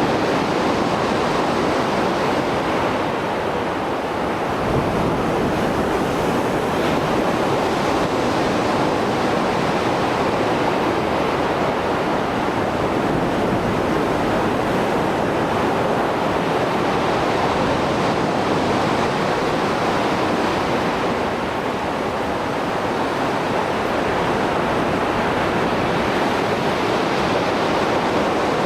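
Mediterranean Sea waves breaking and washing on the shore after a storm, a continuous heavy wash of surf that swells and eases slowly.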